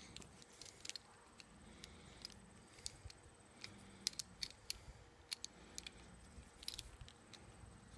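Faint, irregular small clicks and ticks of a Ruger Precision Rifle bolt's metal parts being handled and turned in the hands as the firing pin assembly is fitted back into the bolt body.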